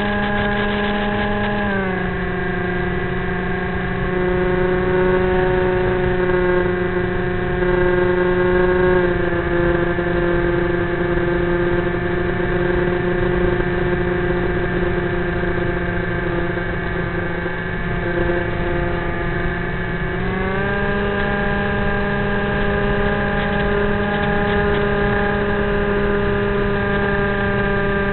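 Electric motor and 7x6 propeller of a Teksumo flying wing running in flight, heard from the onboard camera as a steady pitched hum over a low rush of wind. The pitch dips slightly about 2 seconds in and again about 9 seconds in, and rises again about 20 seconds in as the throttle changes.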